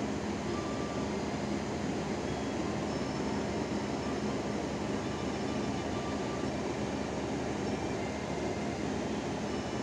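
Steady drone of running machinery with a constant low hum and a few faint higher tones, unchanging throughout.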